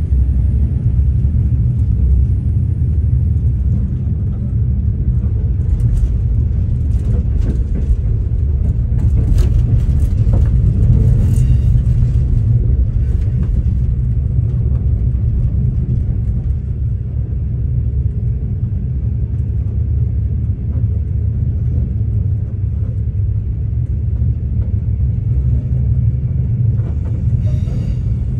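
Steady low rumble of a V/Line diesel passenger train running along the line, heard from inside the carriage. A run of light clicks and ticks comes in about six to twelve seconds in, and a few more near the end.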